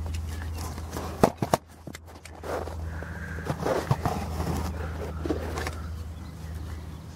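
Two sharp knocks about a second in, then irregular rustling and scraping close to the microphone as a Chinese Crested dog noses at the camera, over a steady low hum.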